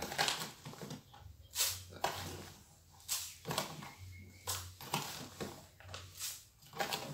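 A spoon scooping granulated sugar from a plastic measuring jug and tipping it into a popcorn machine's pot, a short gritty scrape about every second and a half.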